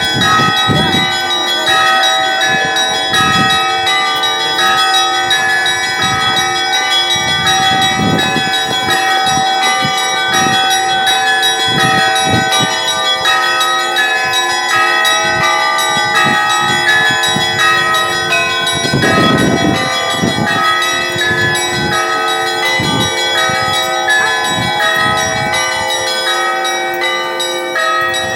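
Russian Orthodox church bells ringing together: several bells of different pitches struck in quick, overlapping succession, each tone ringing on under the next strikes.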